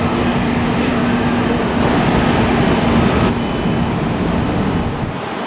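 Jet airliner engines running, a loud steady noise with a low hum through it. The sound changes abruptly about three seconds in and eases slightly near the end.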